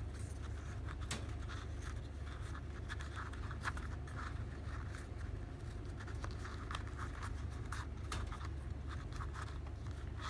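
Thin leather being folded and its tab pushed through a slit by hand: irregular soft scraping and rustling with small clicks as the leather rubs against itself and the fingers, over a steady low hum.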